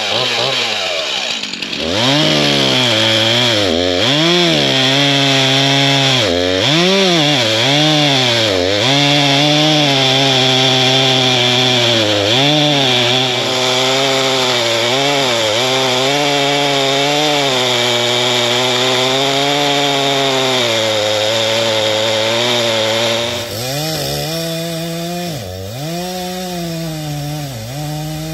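Chainsaw cutting up a fallen tree, its engine pitch sagging under load and rising again every second or two. About three-quarters of the way through it gets quieter and carries on at a lower level.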